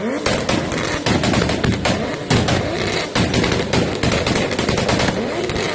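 A 2JZ straight-six in a swapped BMW E30 is revved repeatedly in short blips, about once a second. Its exhaust pops and crackles rapidly throughout.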